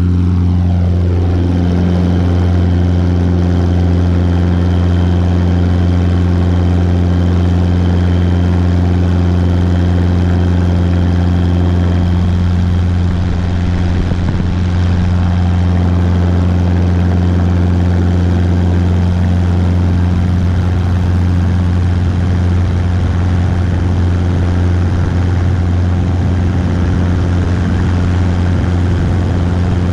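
Robinson R22 helicopter at full power in a maximum-performance takeoff and climb: its engine and rotor make a steady low drone that holds throughout.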